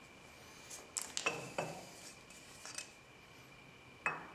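Steel lathe parts and hand tools clinking and clattering as they are handled at the headstock: a cluster of sharp metallic clinks about a second in, a lighter one later, and another just before the end.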